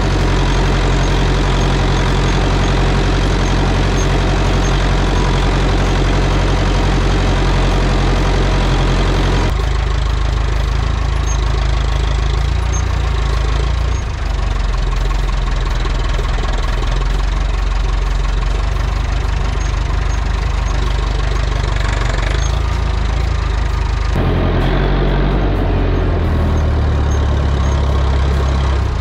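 Renault 70-34 tractor's Perkins diesel engine running steadily while hauling straw bales. The engine note changes abruptly about a third of the way in and again near the end.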